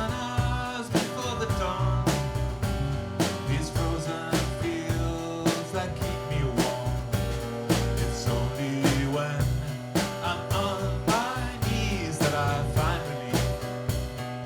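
A live band playing an instrumental passage of a country-rock song: drum kit keeping a steady beat under bass, guitar and a sliding lead melody.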